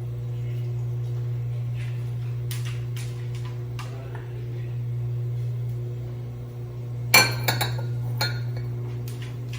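Kitchen utensils and dishes clinking while eggs cook in pans: a few light clinks, then a louder cluster of clinks near the end, over a steady low hum.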